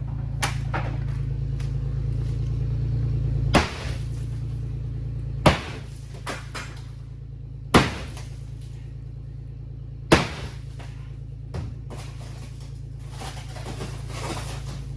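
Sledgehammer blows on the roof of a BMW E36 shell: four heavy strikes about two seconds apart, with lighter knocks between them and a steady low hum underneath.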